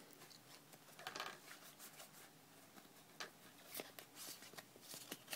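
Faint rustling and a few light clicks of a foil Pokémon booster pack and its cards being handled as the cards are drawn out.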